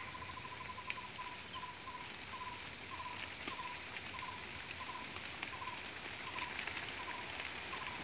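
Light rustling and scattered clicks of a nylon cast net being handled on grass while a fish is freed from its mesh, with one sharper click about three seconds in. Behind it, a short high chirp from a small animal repeats steadily about every two-thirds of a second.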